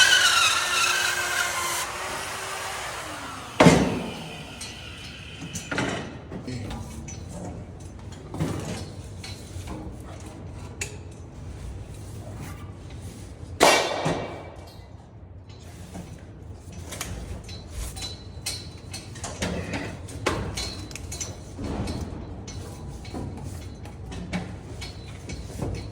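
A router cutting drywall, its motor whine fading and falling in pitch as it is switched off and winds down in the first few seconds. After that, scattered knocks and rubbing from the drywall being handled and fitted, with two sharp knocks about four and fourteen seconds in.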